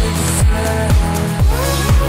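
Electronic dance music with a steady kick drum, about two beats a second, under held synth chords.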